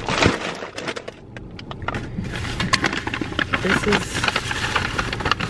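Plastic bags crinkling and rustling as things are handled, with scattered small clicks and knocks.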